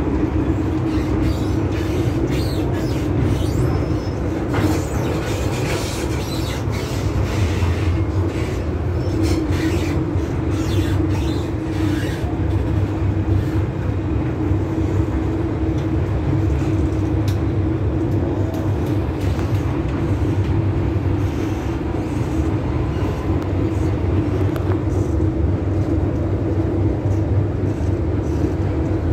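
Hong Kong MTR M-Train electric multiple unit running, heard inside the passenger car: a steady low rumble of wheels and running gear with a constant hum. Light clicks and rattles come through during the first half.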